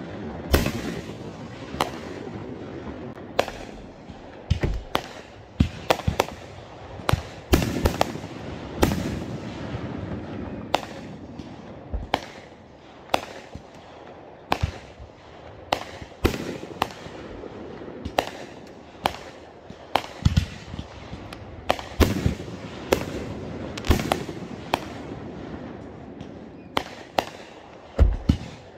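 Consumer aerial fireworks going off overhead: an irregular string of sharp bangs, roughly one or two a second, each trailing off in an echo.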